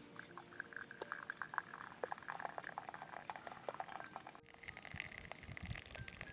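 Crackling, bubbling liquid sounds with dense small pops, broken by a sudden cut about four and a half seconds in.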